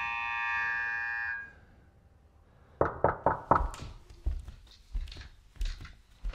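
A held, steady chord of several tones cuts off about a second and a half in. After a short pause comes a run of quick, sharp knocks in uneven groups, like rapping on a wooden door.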